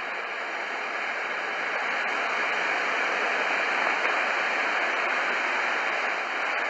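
Shortwave static from a Tecsun PL-600 receiver tuned to 7520 kHz in narrow bandwidth: a steady hiss with no programme audio and a couple of faint clicks.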